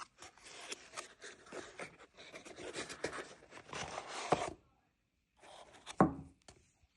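Packaging being handled and opened: scratchy rubbing and scraping in bursts, then a brief pause, then more rubbing with a sharp knock about six seconds in, the loudest sound.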